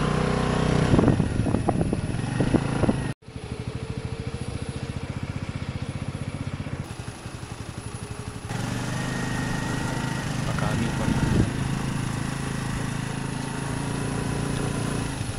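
Vehicle engine idling steadily, with a few brief voices over it. The sound drops out suddenly about three seconds in and changes character again around eight seconds, as the footage is cut.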